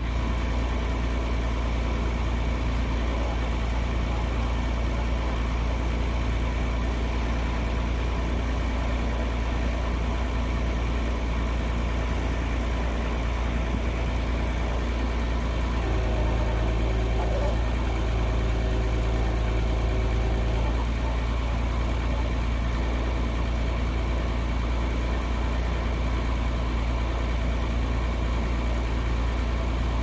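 Bucket truck's engine idling steadily, keeping the boom's hydraulics running. About sixteen seconds in, an extra higher hum joins for about five seconds, then fades back to the plain idle.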